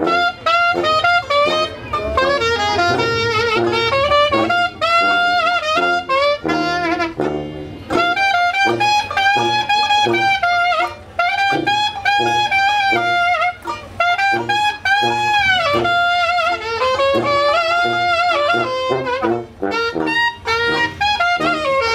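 Small trad jazz band playing live: saxophone and clarinet melody lines over a sousaphone bass and strummed banjo.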